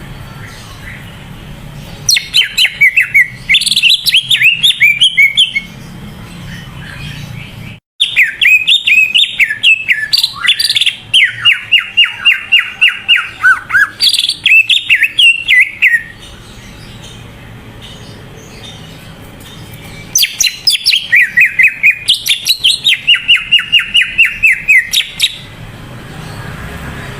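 Green leafbird (cucak ijo) singing loudly in three bouts of rapid, repeated whistled notes that slide and tumble downward. A low hum runs in the pauses between bouts.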